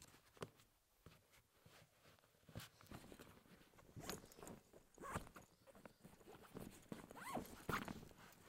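Quiet rustling and small soft knocks of trainers being pulled off and shoes handled, busier from about halfway through.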